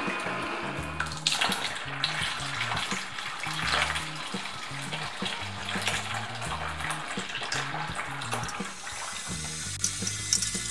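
Orange juice pouring and splashing from a jug into a plastic bucket, over background music with a bass line that moves in short steps.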